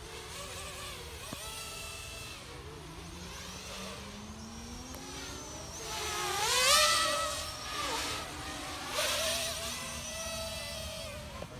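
Two Bugs 8 Pro racing quadcopters, rebuilt on Wizard X220 frames, whining as they race about overhead, the pitch of their motors and propellers rising and falling with each throttle change. The loudest part is a close, fast pass about six to seven seconds in, with a sharp rise in pitch, and there is a second swell a couple of seconds later.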